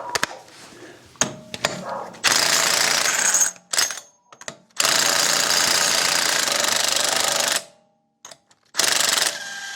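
Impact wrench on a 36 mm socket hammering the front axle hub nut loose, in three bursts: one about a second long, a longer one of nearly three seconds, and a short one near the end.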